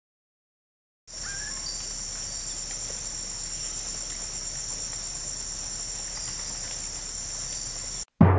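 After a second of silence, a steady high-pitched chorus of insects trilling, with one short bird chirp about half a second after the chorus begins. Near the end it cuts off abruptly and a loud, deep, ringing musical note starts.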